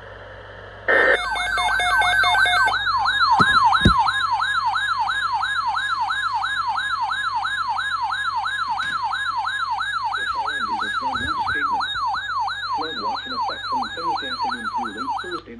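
Electronic siren in a fast yelp, its pitch sweeping up and down about three times a second. It starts suddenly about a second in with a brief steady multi-tone blast and stops abruptly near the end.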